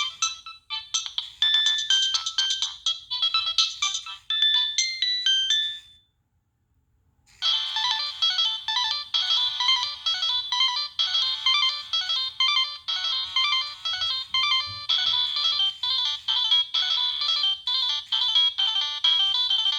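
Preloaded Nokia 3588i ringtones playing through the phone's speaker. One short electronic tune ends about six seconds in, and after a second or so of silence a busier tune with several notes at once starts and keeps playing.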